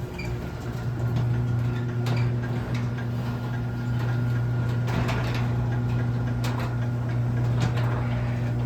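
Chamberlain garage door opener running steadily, a low even motor hum with a few faint clicks as it raises the door. It is pretty quiet.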